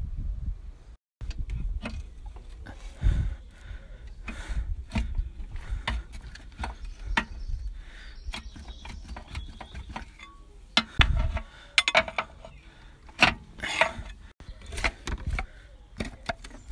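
Hand tools clinking, tapping and knocking against metal car parts during gearbox removal, with low rumbling handling noise on the phone's microphone. The sound cuts out briefly about a second in.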